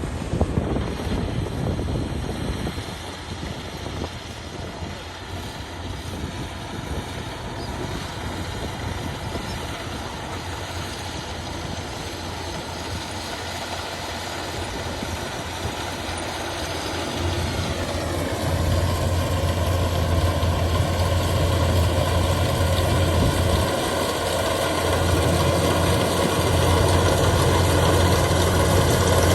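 Kubota rice harvester's engine and machinery running steadily. A little past halfway the pitch drops and a low hum grows louder, staying louder to the end.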